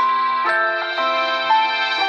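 A Samsung Galaxy S2 ringtone playing: a melody of held chords, the notes changing about every half second.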